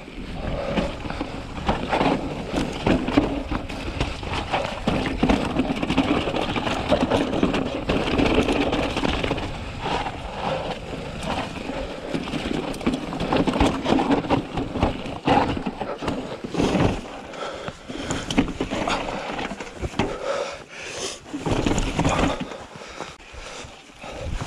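Mountain bike descending rocky singletrack: tyres rolling and crunching over loose stones, with frequent sharp knocks and rattles from the bike as it hits rocks.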